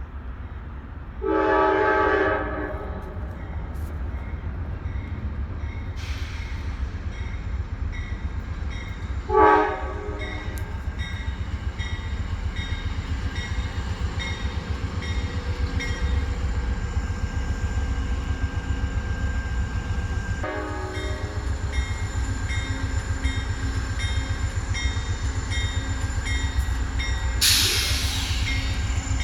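Amtrak passenger locomotive's air horn sounding a long chord about a second in, a short loud blast near ten seconds and a fainter one around twenty seconds, over the steady low rumble of the train. A rush of hissing noise comes near the end.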